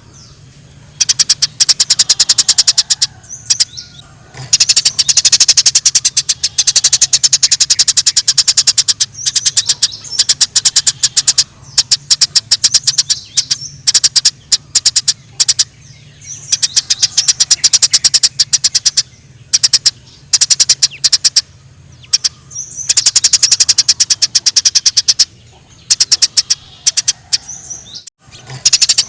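Eurasian tree sparrows chattering in rapid, loud bouts of fast chirps, each bout lasting a few seconds with brief pauses between, the agitated call of sparrows fighting. A faint steady low hum runs underneath.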